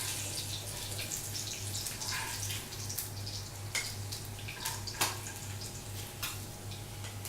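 Pomfret fish sizzling in hot oil in a frying pan, with several sharp clicks and taps of a utensil against the pan as the fried fish is lifted out. A steady low hum sits underneath.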